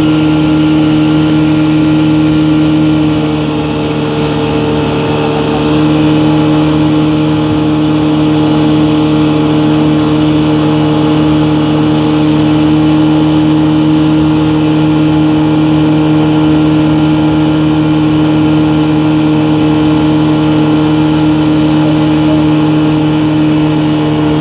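Boat engine running steadily at a constant pitch. It eases off briefly about four seconds in, then comes back up and holds steady.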